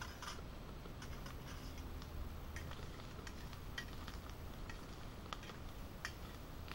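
Irregular crackling and sharp clicks from a twig fire burning in a small Firebox hobo stove under a frying pan of potatoes, with a utensil stirring in the pan about halfway through.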